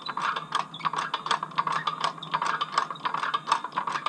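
Hydraulic floor jack being pumped to raise a steel tow-bar crossmember: a rapid, irregular run of metallic clicks and rattles.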